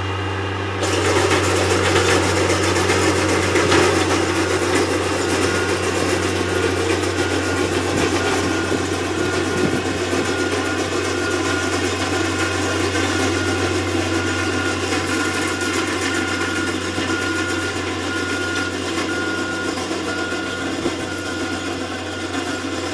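Diesel engine of a compact track loader working a rock-hound attachment across a field, running steadily. The noise jumps up about a second in and then slowly eases off as the machine moves away. A string of evenly spaced beeps, like a reversing alarm, sounds for several seconds in the second half.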